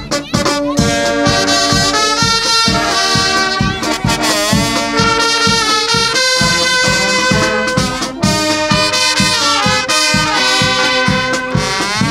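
Brass band playing a lively tune: trumpet and trombone carry the melody over lower brass, with a steady low beat about twice a second.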